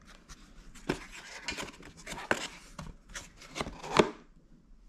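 A moulded paper-pulp egg carton being handled on a table: the lid closed and the carton moved, giving a run of scuffs, taps and light rustles.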